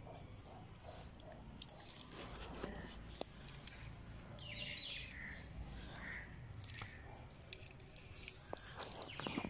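Fingers scratching and pressing into dry, gritty garden soil, a faint crunching with many small clicks of grit. A bird chirps briefly about halfway through and again near the end.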